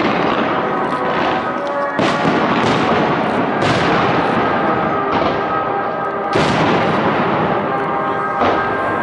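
Fireworks display: aerial shells bursting one after another over a constant crackle, with sharper bangs standing out about two, three and a half, six and a half and eight and a half seconds in.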